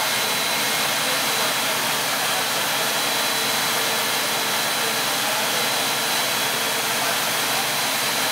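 Two-stage plastic recycling extruder line running in production: a steady machine hiss and hum with a thin, steady high whine.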